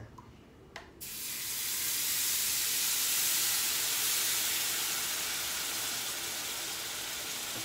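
Water poured into a hot cast-iron skillet of browned flour and pan drippings, hissing and sizzling loudly as it flashes to steam. The hiss starts suddenly about a second in and eases only slightly.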